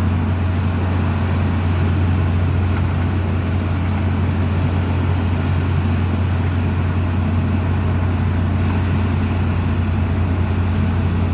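Engine of a drilling rig running steadily, a constant low hum with no change in speed.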